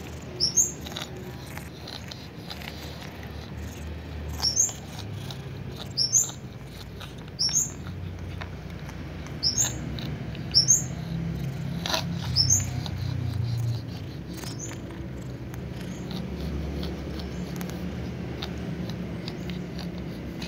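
A cat crunching and chewing dry fried food, with many faint crisp clicks. Over it come short, sharp high chirps, mostly in pairs, every second or two until about two-thirds of the way through. The chirps are the loudest sound.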